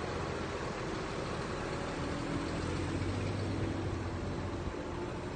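Heavy diesel construction machinery running steadily, with a low engine drone under a wide mechanical noise.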